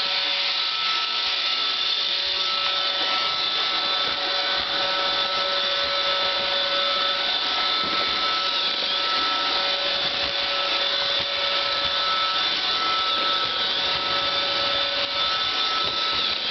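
iRobot Roomba 550 robot vacuum running: a steady motor whine with several constant tones over the brush and suction noise.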